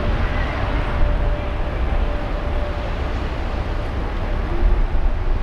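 Steady city street traffic noise with a heavy low rumble and no distinct events.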